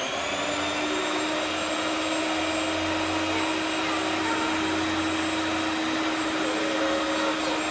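Electric hand mixer on its bowl stand running steadily at one speed, a constant motor whine as its beaters mix pandesal dough.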